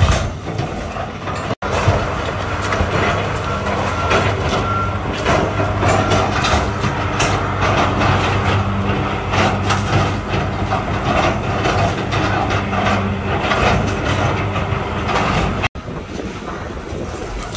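Volvo excavator's diesel engine running steadily while it tears into a wooden house, with repeated cracking and crunching of splintering timber and clattering debris. Near the end it drops to a quieter outdoor noise.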